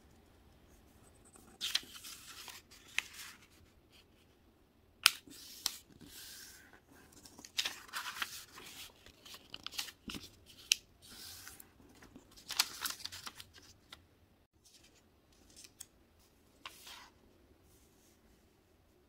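Sheet of colored origami paper being handled and folded by hand: irregular bursts of rustling and crinkling as it is creased, with a few sharp taps.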